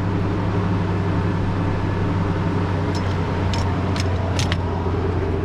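1998 Toyota 4Runner engine idling steadily while the brake system is pressurized for bleeding a new master cylinder. A few light clicks come between the middle and near the end.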